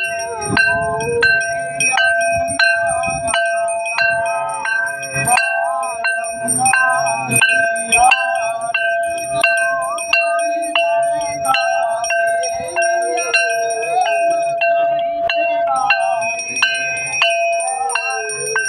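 A temple bell rung without pause through the evening aarti, a steady ringing tone, with rhythmic hand-clapping a little faster than once a second and voices singing the aarti.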